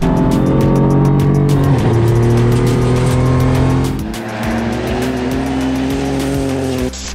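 Rally car engine running hard on a dirt stage; the revs drop sharply about two seconds in and then hold, and from about four seconds in they climb slowly. Music plays underneath.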